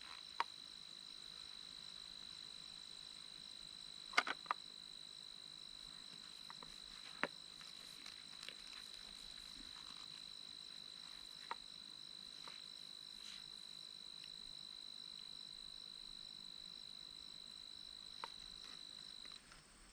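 A cricket's steady high-pitched trill, unbroken until it stops just before the end, with a few faint clicks and taps, the most noticeable about four seconds in.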